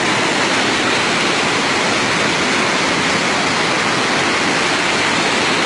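Fast muddy floodwater rushing in a loud, steady torrent, churning around a stranded truck and trailer.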